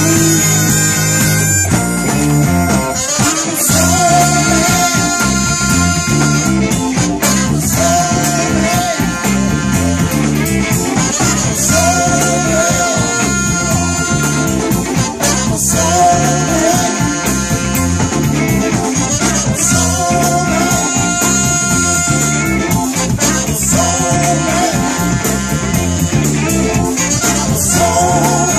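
A live blues-rock band with a horn section, electric guitar and drums playing an upbeat number, with a driving rhythm and a phrase that repeats about every four seconds.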